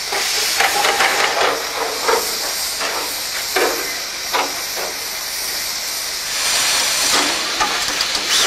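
Steam crane hissing steam, with sharp puffs about every three-quarters of a second for the first few seconds. It then settles into a steadier, louder hiss from about six seconds in.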